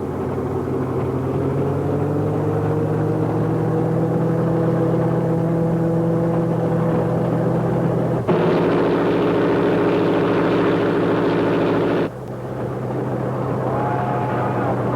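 Locomotive engine running with a steady drone, its pitch climbing over the first few seconds. About eight seconds in, the train whistle blows one sudden blast lasting about four seconds, and it starts to sound again near the end.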